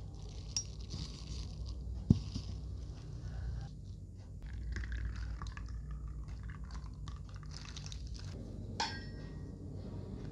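Thick peanut sauce poured from a plastic bag into a plastic tub, with irregular wet, rustling noise over several seconds. A sharp knock about two seconds in is the loudest sound, and there is another click near the end.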